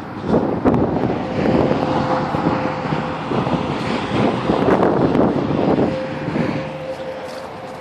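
A vehicle passing close by: a rushing noise that builds and fades over about six seconds. It covers the steady tone of a distant tornado siren, which comes back near the end.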